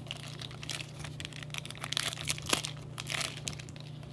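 Foil wrapper of a Magic: The Gathering booster pack crinkling and tearing as it is pulled open, with a sharp snap a little past halfway. A steady low hum runs underneath.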